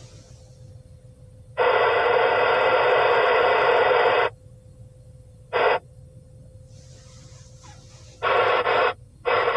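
VHF FM transceiver tuned to the ISS downlink on 145.800 MHz, sounding loud bursts of static hiss from its speaker that start and stop abruptly: one lasting about two and a half seconds, a short blip, and two more near the end. This is the receiver picking up noise from a weak, not yet readable signal from the space station.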